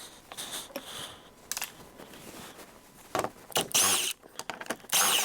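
Handling noises of tools and car parts during repair work: a few short, irregular clinks and scrapes, the loudest two near the end.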